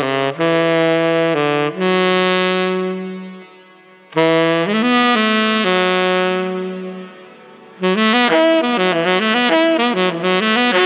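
Tenor saxophone playing three phrases: held notes in the first two, and a fast wavering run of notes rising and falling in the last.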